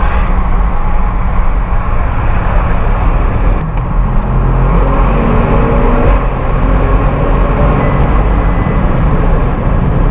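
Audi RS6 C7's twin-turbo 4.0 V8 pulling under acceleration over road noise. Its pitch climbs, breaks off briefly about three and a half seconds in, then climbs again before settling.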